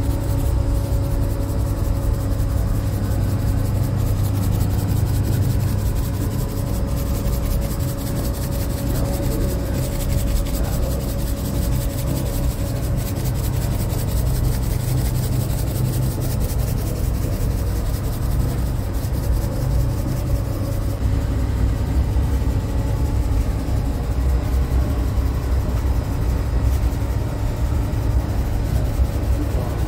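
Steady low rumble and hum of bakery machinery such as the oven's burner and motor, running without a break.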